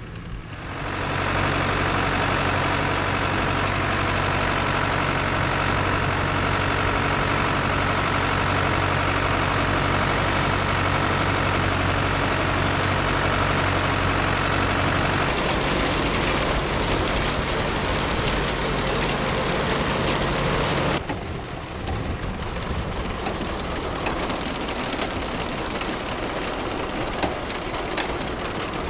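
1978 Ford 7700 diesel tractor running steadily under load while pulling a New Holland 850 round baler through the windrows. The sound comes up in the first second. The engine note shifts about halfway through, and about three-quarters of the way in the sound drops suddenly to a quieter, more distant level.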